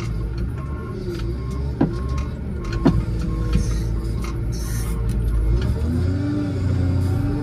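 Case 621E wheel loader heard from the cab, its diesel engine running under load while pushing snow, the engine note rising and falling. There are two sharp knocks, about two and three seconds in.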